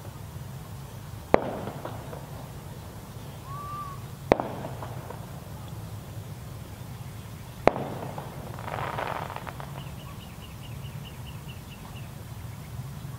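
Three sharp ceremonial salute shots, about three seconds apart, each followed by a brief echo.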